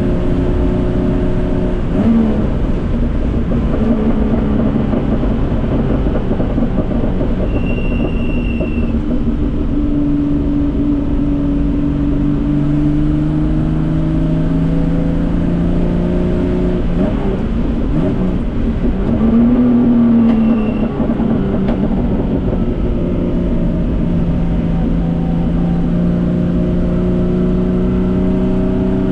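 Datsun 240K Group C race car's straight-six engine running hard on track. The revs climb and fall through the gears, with gear changes a couple of seconds in and twice more past the middle.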